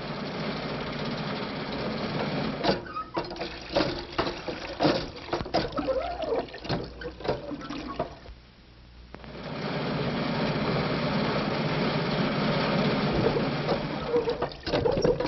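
Radio sound effect of an old, crippled car driving: a steady mechanical running noise, broken a few seconds in by a spell of sharp clanks and rattles. About halfway through it drops briefly, then the steady running comes back, with more clanks near the end.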